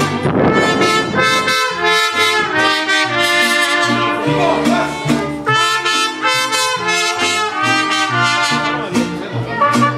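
Mariachi band playing live, two trumpets carrying the melody over a stepping bass line.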